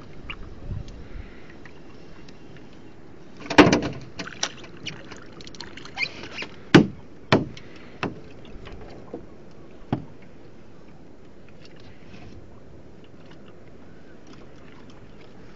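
A string of sharp knocks and thumps against a small boat's deck, about seven of them, loudest about three and a half seconds in and again near seven seconds, over a steady background of wind and water noise.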